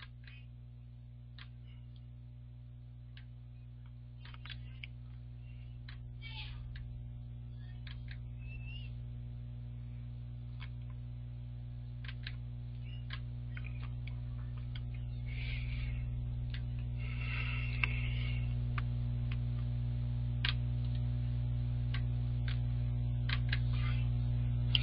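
Steady electrical mains hum that grows slowly louder, with scattered faint clicks.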